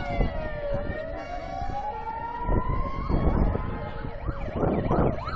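Emergency vehicle siren on a slow wail, sweeping down and then back up, switching to a fast yelp about four and a half seconds in, over a low rumble.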